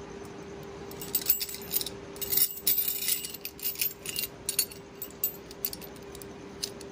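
Steel chain links, ring and horseshoes of a horseshoe ring puzzle clinking and jangling against each other as the puzzle is worked by hand: a quick, irregular run of sharp metal clinks starting about a second in. A steady faint hum runs underneath.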